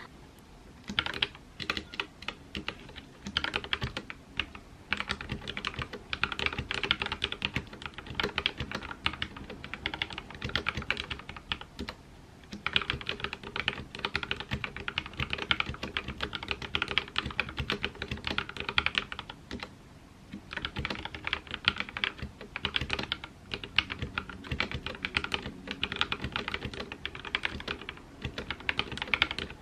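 Fast, steady typing on a mechanical keyboard with Everglide Aqua King switches and POM jelly keycaps: a dense run of key clacks, with a couple of brief pauses.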